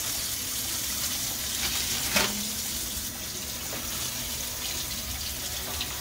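Kitchen faucet running steadily into a stainless steel sink while a cured pork butt is rinsed of its dry cure under the stream, with one sharp knock about two seconds in.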